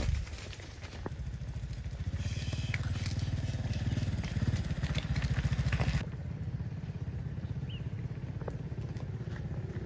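A small engine running steadily with a fast, even putter. It grows louder in the middle and drops suddenly about six seconds in.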